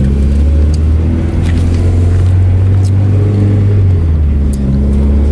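Car engine running under way, heard from inside the cabin: a loud, steady low drone whose pitch shifts slightly a couple of times.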